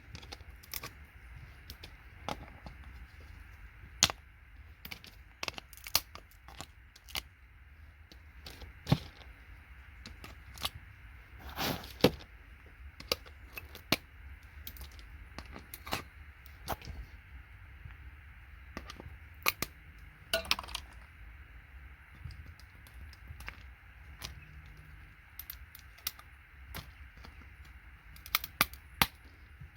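Scattered sharp cracks and clicks of electronic components being broken and knocked off scrap circuit boards with hand tools, with small parts clattering down, some strikes in quick clusters around a quarter and near the end. A steady low hum runs underneath.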